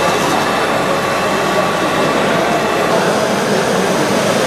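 Steady engine-like drone of a radio-controlled scale truck driving under load, mixed with the general hum of a busy hall; the tone shifts slightly about three seconds in.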